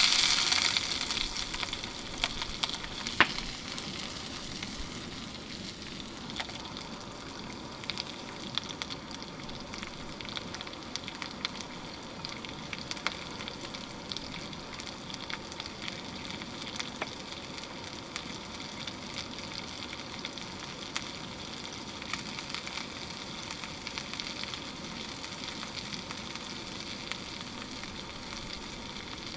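Food frying in a hot frying pan: a loud sizzle that starts suddenly and settles within a few seconds into a steady sizzle with scattered pops.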